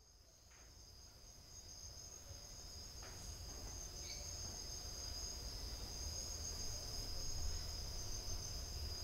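Chorus of night insects: a steady high-pitched trill, fading in over the first few seconds, over a faint low rumble.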